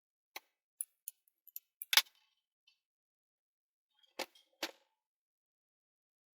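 Small clicks and knocks of parts being handled while a 3D-printed Y-stepper motor housing is mounted on a 3D printer frame: a quick run of light clicks, one sharper knock about two seconds in, then two more knocks past the four-second mark.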